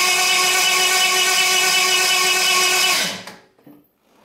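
Jaguar XJ6's XK straight-six being cranked over by its starter motor with fuel and spark disabled and the spark plugs out, a steady whine. It stops about three seconds in, the pitch falling as it spins down. This is a check for coolant blowing out of the cylinders from a failed head gasket.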